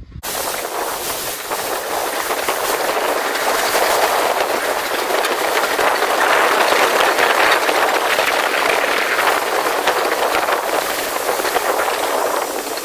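Steam tank locomotive Lambton No. 29 (a 1904 0-6-2T) heard from on board while running along the line: a loud, steady rush of running noise and steam hiss, growing a little louder over the first half.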